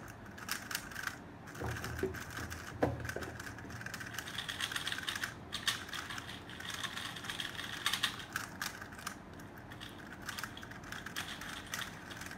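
Fast, continuous plastic clicking and clacking of 3x3 speedcubes being turned during a solve, with a couple of dull knocks about two and three seconds in.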